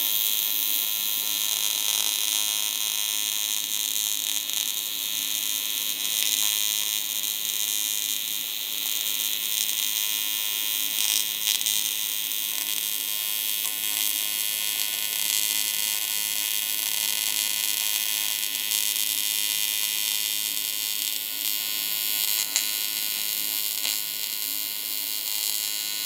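AC TIG welding arc on aluminum, running at about 105 amps with the AC frequency at 100 Hz: a steady, unbroken buzzing hiss.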